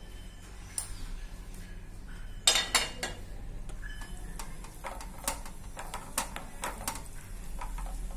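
A spoon clinking and scraping against a pan while stirring cashews frying in ghee, with a quick run of sharp knocks about two and a half seconds in and scattered single clicks after.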